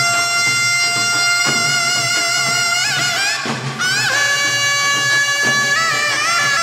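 Taepyeongso, the Korean double-reed shawm, playing a slow melody of long held notes, each change of note slurred with a quick wavering ornament.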